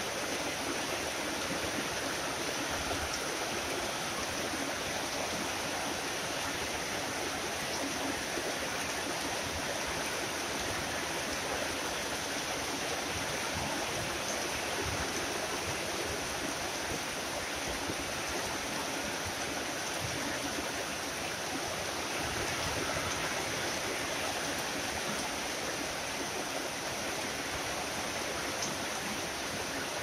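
Tropical rain falling steadily, an even hiss with no let-up.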